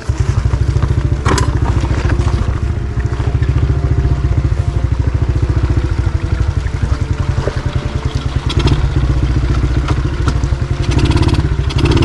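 Motorbike engine running with a fast, even pulsing beat as the bike labours up a rough rocky track, with a sharp knock about a second and a half in. The bike is struggling on the climb.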